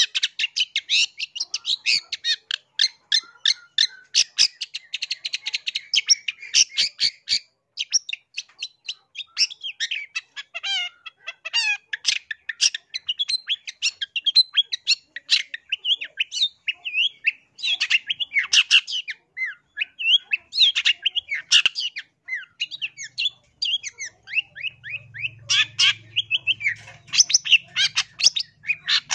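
Long-tailed shrike (cendet) singing a fast chattering song of rapid high notes with harsh squawks. The song runs in a dense stream for the first seven seconds, then breaks into varied phrases with short pauses.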